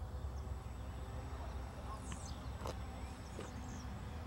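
Low, steady rumble of wind on the microphone, with faint high bird chirps scattered through.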